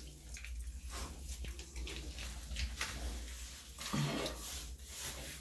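Water splashing and running in a tiled shower as a wet dog is washed, with uneven splashes throughout.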